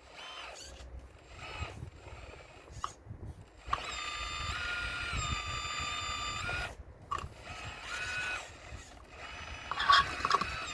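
RC model Caterpillar excavator working against a stone wall: its motors whine steadily for about three seconds in the middle, the pitch stepping up and back down as the load changes. Stones knock and clatter in short bursts, loudest near the end.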